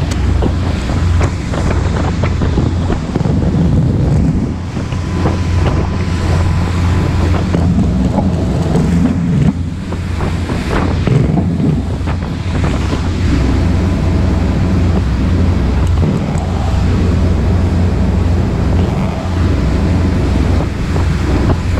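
Wind buffeting the microphone at the rail of a moving passenger ferry, over the rush of its wake and a steady low engine drone.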